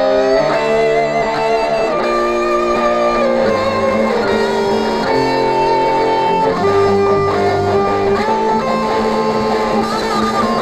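Playback of a home multitrack recording: sustained electric guitar lines over a bass guitar part, recorded straight into a computer's onboard sound card through a guitar multi-effects unit.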